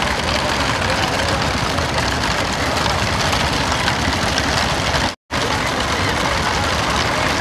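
Steady engine and road noise of a moving vehicle, with the sound cutting out for a split second about five seconds in.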